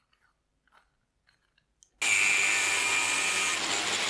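Faint clicks of the brass tap being handled. Then, about two seconds in, an electric power tool starts suddenly on the brass part and runs loud and steady with a high whine, cutting off sharply at the end.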